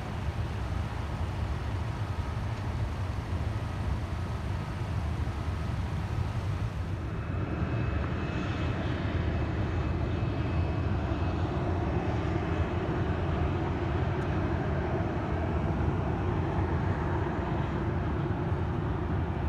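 Steady low outdoor rumble, then about seven seconds in the engines of an American Airlines Boeing 737 come in, running with a steady high whine over a broad roar as the jet moves along the runway.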